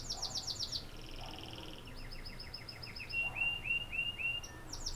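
Songbirds singing: repeated phrases of quick, high chirping notes and short trills, one phrase after another.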